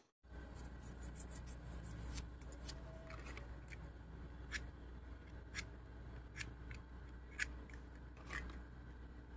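Short, dry scrapes on a car starter motor's armature as it is worked by hand: a quick run of strokes in the first two seconds, then about one a second. A faint steady low hum runs underneath.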